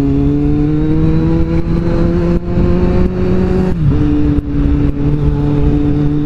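Kawasaki Z750's inline-four engine pulling under acceleration, its pitch rising steadily, then dropping sharply about four seconds in as it shifts up a gear and carries on at a steady pitch.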